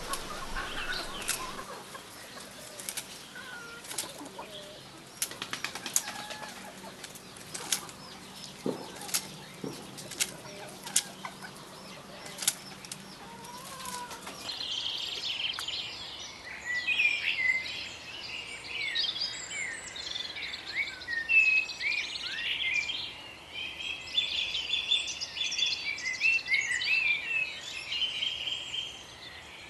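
A chicken moving and flapping its wings among leafy branches: irregular rustles, snaps and wing flutters. About halfway through this gives way to a dense chorus of small songbirds chirping and twittering.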